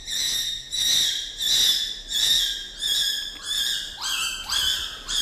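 Infant chimpanzee screaming: shrill, high-pitched cries repeated about three times every two seconds.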